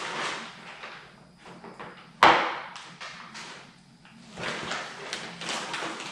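Handling of a Tesla Model 3 plastic front bumper cover on plastic sheeting: rustling and small knocks, with one sharp knock a little over two seconds in, the loudest sound.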